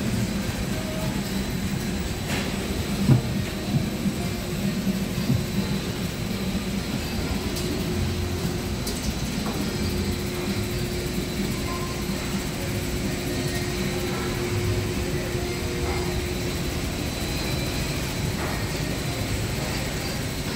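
Steady supermarket room noise: a low rumble with a faint steady hum, and a brief knock about three seconds in.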